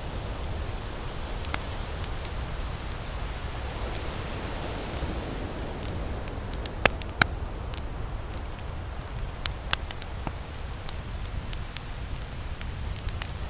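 Campfire crackling, with scattered sharp pops of burning wood, the loudest two close together about halfway through, over a steady low rush of surf.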